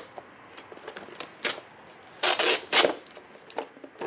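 Hard clear plastic display case being pried open by hand: a few sharp plastic clicks and scrapes, loudest in a cluster between two and three seconds in.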